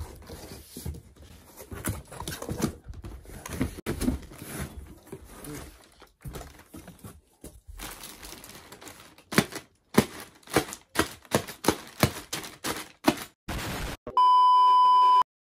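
Cardboard box flaps and plastic air-pillow packing rustling and crinkling as a box is opened, then a quick run of sharp clicks and snaps. Near the end a steady 1 kHz test-card beep from a colour-bars screen sounds for about a second and cuts off to silence.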